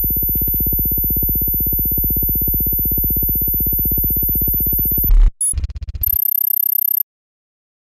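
Electronic synthesizer sound: a low, rapidly pulsing buzz with a steady very high whine above it. About five seconds in it breaks into a short loud burst and a choppy stutter, then a lone high tone, and cuts to dead silence near the end.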